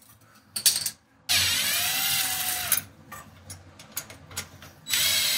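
Power drill running in two bursts, the first about a second and a half long with its motor pitch rising and falling, the second starting near the end, with a few clicks and knocks between.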